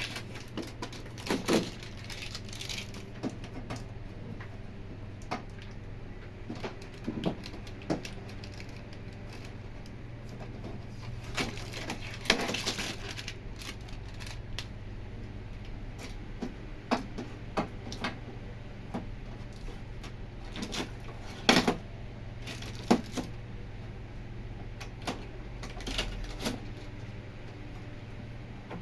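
Sporadic clicks, knocks and light metallic clinks of hand tools and small parts being handled, with a few louder knocks, over a steady low hum.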